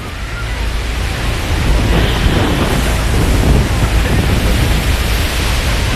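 Steady roar of wind and the falling water of Niagara Falls, with heavy wind buffeting the phone microphone as a deep rumble. Faint voices in the background.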